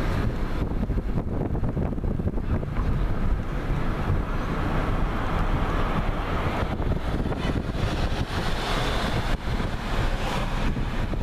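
Wind rushing over the microphone with the low, steady rumble of a car driving slowly. The rush swells a little in the second half.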